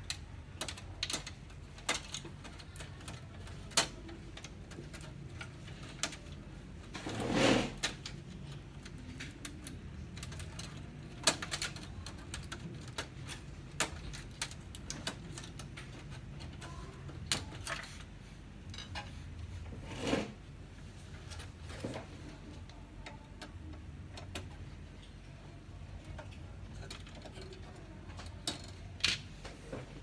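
Scattered small clicks and taps of hands working on an opened laser printer's circuit board and plastic housing, with a longer, louder scrape about seven seconds in and another around twenty seconds.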